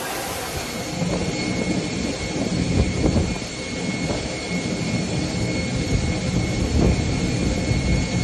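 Airliner jet engines running as the plane taxis through deep floodwater: a steady high whine over a low rumble that swells and fades with the rush of water and spray.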